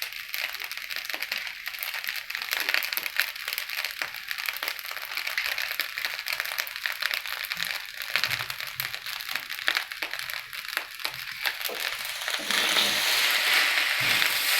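Fried rice frying in hot oil in a pan, crackling with many small pops; about twelve seconds in it turns into a louder, steadier sizzle.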